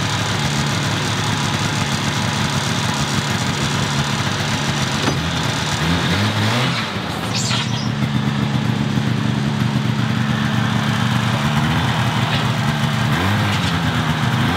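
Snowmobile engine running, its pitch rising and falling as it is revved, once about six seconds in and again near the end.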